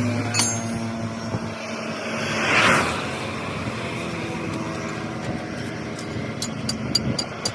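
Motor vehicle engine running steadily, swelling briefly a little under three seconds in, with several sharp ticks near the end.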